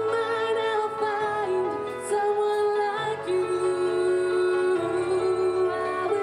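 Music with long held notes over a low bass line that changes every second or two.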